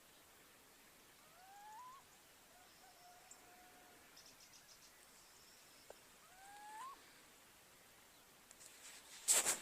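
A bird calls twice, about five seconds apart, each a short whistle rising in pitch, with a softer, flatter call between them, against a faint outdoor background. Near the end there is a loud, brief rustling noise.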